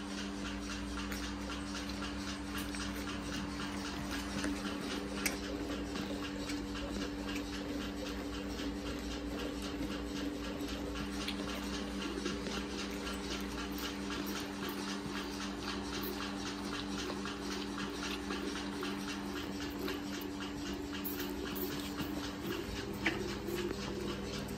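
Calf sucking and slurping milk from the rubber teat of a hand-held feeding bottle, over the steady hum of a milking machine running.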